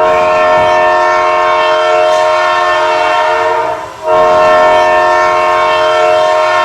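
Arena air horn sounding two long blasts, each nearly four seconds, with a short break between them. It is a loud chord of several steady tones.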